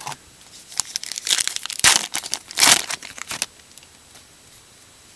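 A baseball card pack's wrapper being torn open and crinkled: a run of crackles with two loudest rips in the middle, stopping about three and a half seconds in.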